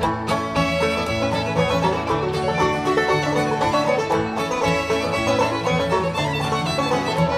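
Instrumental background music with a steady rhythm.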